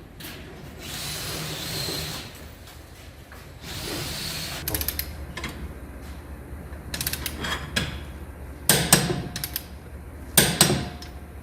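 Tools at work on a wheel hub during a wheel-spacer install: metallic clicks and clanks, with two short loud bursts near the end. There are also two stretches of hiss early on and a low hum underneath.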